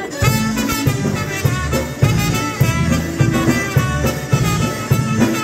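Live polka band striking up a tune, with trumpet and violin carrying the melody over accordion, electric bass and drum kit keeping a steady, bouncy beat. The music starts right at the beginning, cutting in over room chatter.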